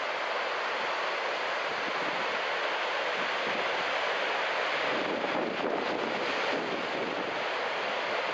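Ocean surf breaking on a beach, a steady wash that swells slightly past the middle, with wind buffeting the microphone.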